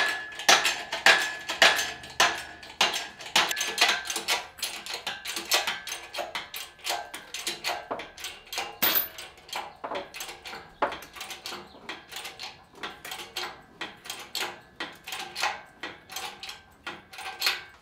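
Metal clicking and clanking, a few strokes a second with a louder clank about eleven seconds in: an engine hoist and its lifting chain working as the engine is raised out of the bay.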